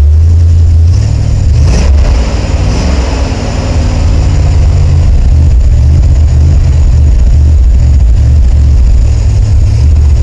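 Engine of a 1979 Ford F-150 pickup running, its speed wavering up and down a little about two to four seconds in.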